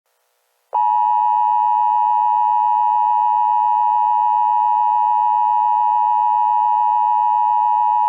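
Emergency Alert System attention signal: a loud, steady electronic alert tone that starts just under a second in and holds unchanged, signalling that an emergency alert message follows.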